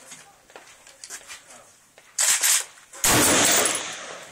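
Gunshots at a shooting range: a sharp report a little after two seconds in, then a much louder shot about three seconds in whose echo fades over about a second.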